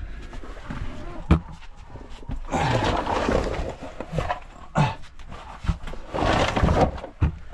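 A person crawling through a tight cave passage: body and gear scraping and shuffling over the floor, with heavy breathing in two longer bursts. A sharp knock about a second in is the loudest sound.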